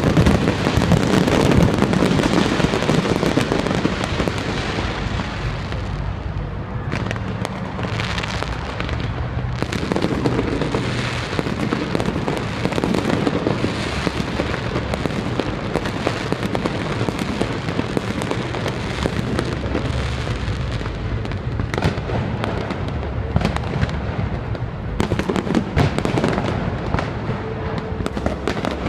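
Fireworks display: a dense, continuous run of bangs and crackles from aerial shells over a low rumble.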